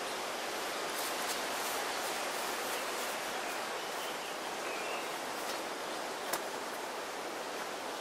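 Steady outdoor hiss, like wind in the leaves, with a few faint rustles and clicks as beekeeping gloves and a veil are handled and put on.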